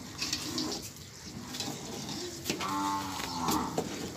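A cow mooing once, a drawn-out call of about a second starting around two and a half seconds in, with short metallic clicks of a ladle against a steel pot.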